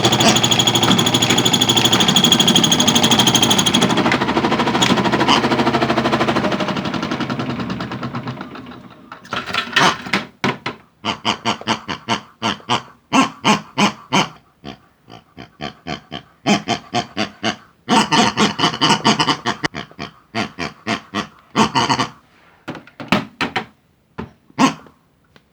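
Toy washing machine with hard objects in its drum, its motor running with a fast, dense rattle and a steady whine that winds down and fades out within the first eight or nine seconds. After that come irregular bursts of clattering knocks, thinning out to a few single knocks near the end.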